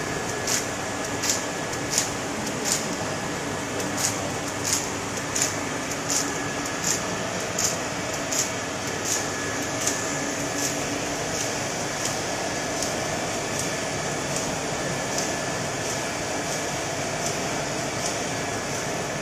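Automatic bottle labeling, collating and film-wrapping machinery running with a steady mechanical hum. A sharp click repeats about every 0.7 seconds and grows fainter in the second half.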